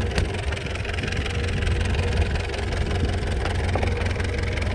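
Fishing boat's engine running steadily with a low rumble, heard from the deck while the longline is hauled in. There is a single light knock just after the start.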